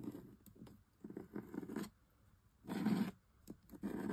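Metal palette knife scraping embossing paste across a plastic stencil laid on card, in a series of spreading strokes about one a second, the loudest near the middle.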